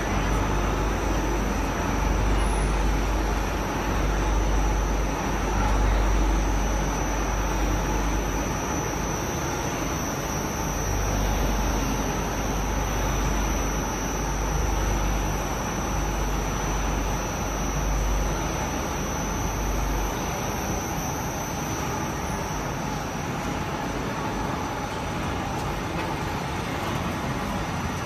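Steady machinery noise from a running continuous carbonization furnace line, with blowers and motors running and a faint high whine. A deep low rumble underneath stops about twenty seconds in.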